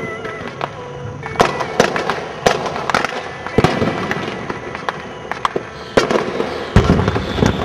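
Fireworks display: aerial shells bursting in a rapid, irregular string of sharp bangs and crackles, with a deeper boom near the end.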